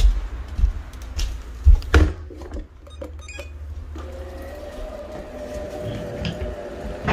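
Robot vacuum cleaner being switched on: a few knocks and handling noises, then about four seconds in its motor starts a steady hum that carries on.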